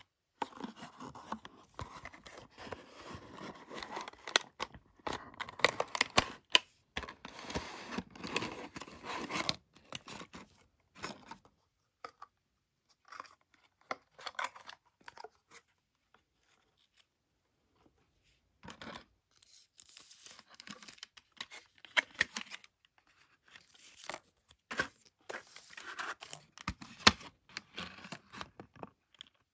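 Packaging being torn open and crinkled by hand to unwrap a blind-box model truck: scratchy tearing and rustling in two busy spells, with a quiet pause of several seconds in the middle.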